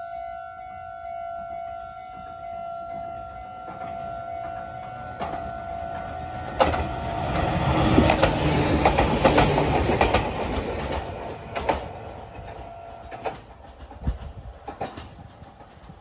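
Railway level-crossing alarm ringing steadily while an electric train passes over the crossing, its wheels clattering over the rail joints, loudest a little past the middle. The alarm stops about three seconds before the end, and the train's clatter fades away.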